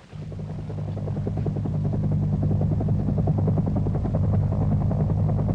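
Helicopter running, a steady engine hum under a rapid rotor beat. It cuts in abruptly, grows louder over the first two seconds, then holds steady.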